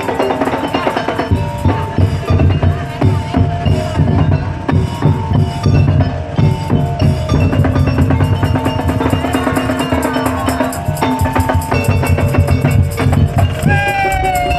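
Madurese daul music: a troupe's drums and wooden percussion beat a fast, dense rhythm under a steady pitched melody. A sliding high melody line comes in near the end.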